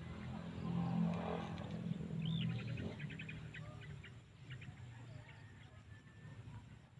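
Small birds chirping outdoors: one short rising-and-falling call a little over two seconds in, then a quick run of chirps, fainter afterwards, over a louder low rumble.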